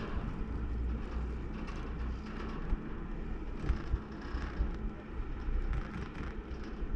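Wind buffeting the microphone on a moving chairlift, a low rumble with a steady hum from the lift running. A few short knocks come in the middle.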